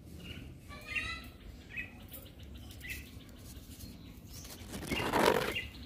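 Birds chirping, with a few short calls in the first three seconds, then a louder rushing noise about five seconds in.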